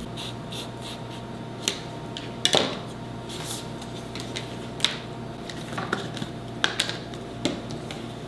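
Scattered light clicks and taps of hand tools being handled during leatherwork, about eight in all and the loudest about two and a half seconds in with a short rustle after it, over a steady room hum.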